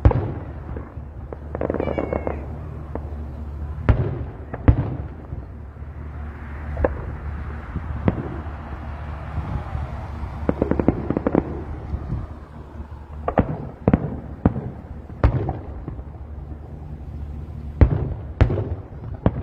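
Fireworks going off: a dozen or so sharp bangs at irregular intervals of one to a few seconds, with bursts of crackling around two seconds in and again about halfway through, and a short whistle near the start. A steady low hum runs underneath.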